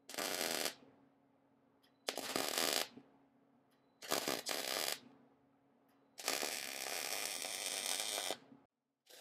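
Electric arc welding in four short bursts, the last and longest about two seconds: crackling tack welds on the steel fork mock-up. A steady low hum runs between the bursts and stops near the end.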